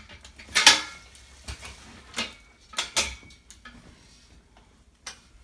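Metal parts of a Z-frame clothes rack clanking as the steel crossbar is fitted into the frame: a series of sharp metallic knocks, the loudest about a second in and a last one near the end.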